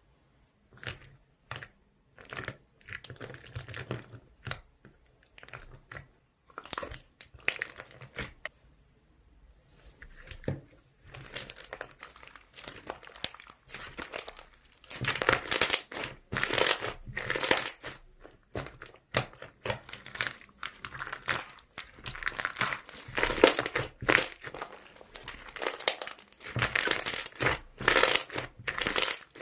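Slime being squeezed, folded and stretched by hand, giving irregular crackling and popping sounds that come thicker and louder in the second half.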